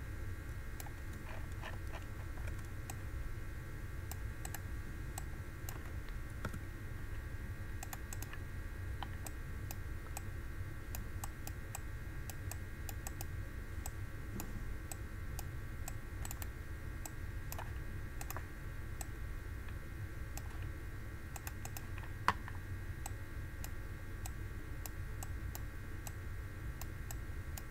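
Scattered light clicks and taps from handwriting input on a computer, over a steady low hum; one sharper click about 22 seconds in.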